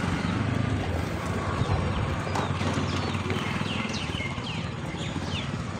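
Motorcycle engine running at low speed, a steady low putter with rapid even pulses. A few short high falling chirps come in the middle.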